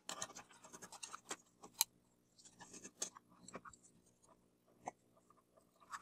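Faint, scattered clicks and light scrapes as a partly reassembled vacuum cleaner motor is handled and turned over in the hands.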